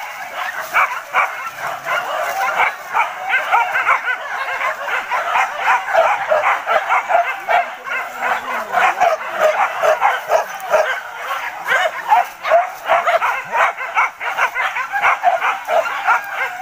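Several hunting dogs yelping and barking rapidly and without pause, their voices overlapping: boar-hunting dogs excited by the chase of a wild boar.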